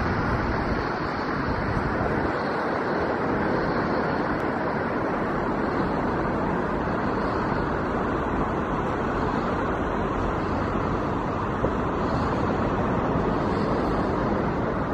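Steady roar of ocean surf on a sandy beach.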